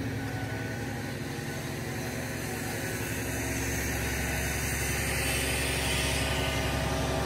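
Diesel engine of a boom-crane truck running steadily at a low, even speed.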